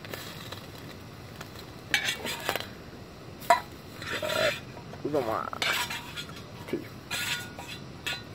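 A metal utensil scrapes and clinks against a frying pan as bacon is stirred and turned, with the sharpest clink about three and a half seconds in. Bacon frying gives a steady background hiss underneath.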